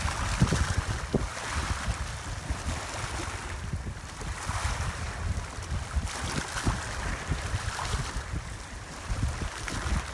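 Wind buffeting the microphone with a gusty low rumble, over small estuary waves washing and lapping against the shore in swells every couple of seconds.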